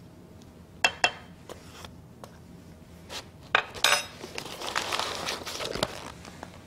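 Small metal spoon clinking against a stainless-steel mixing bowl: two sharp clinks about a second in and a few more near four seconds. Then paper rustling as a paper-lined cardboard box is folded shut.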